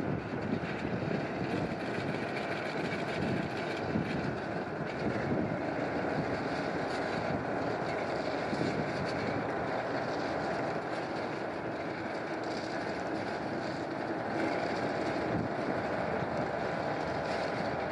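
Diesel-hauled ballast train of open wagons moving slowly along the track while spreading ballast: a steady, even rumble and rattle of wagons and running gear.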